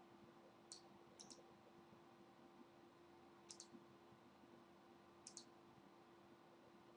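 Faint computer mouse button clicks, four times, mostly as quick double clicks, over near silence with a faint steady hum.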